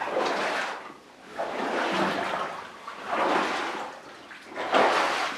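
Boots wading through standing water in a flooded mine tunnel, a slosh with each stride, four strides in a row.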